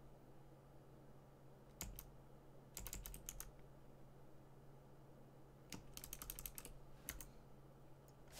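Faint computer keyboard typing: four short bursts of keystrokes, the longest about two thirds of the way through, over a low steady hum.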